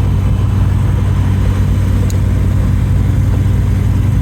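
Zodiac CH 601 light aircraft's piston engine and propeller idling steadily, heard from inside the cockpit as a loud, even low drone.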